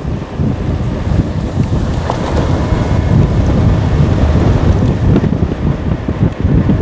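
Strong wind buffeting the microphone: a loud, uneven rumble.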